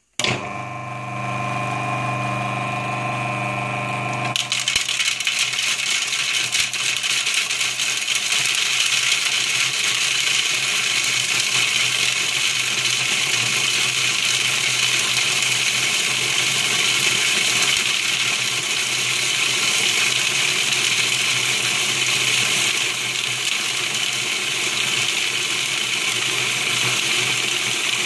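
Food processor switched on, its motor humming steadily while it grinds peanuts into peanut butter. About four seconds in, the sound turns to a loud, even, harsh grinding that runs on.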